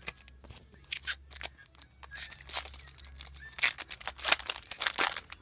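Yu-Gi-Oh! booster pack foil wrappers and cards being handled: an irregular run of quick crinkles, snaps and flicks, busier and louder in the second half.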